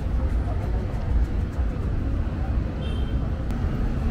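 Busy city street at night: a steady low rumble of traffic with indistinct chatter of passersby.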